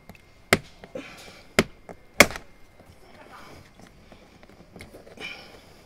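Three sharp knocks on hard plastic in the first half, the last one loudest, as a stuck door courtesy light is worked at to free it from its housing in a car door. Softer clicks and a brief scrape follow near the end.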